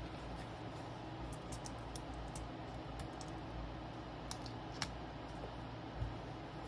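Scattered light clicks and ticks of small hand tools and film being handled on an LCD panel during polarizer film installation, over a steady low hum.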